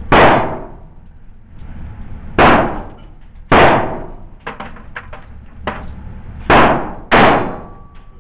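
Five semi-automatic pistol shots fired one at a time at an irregular pace, each a sharp crack followed by an echoing tail from the indoor range.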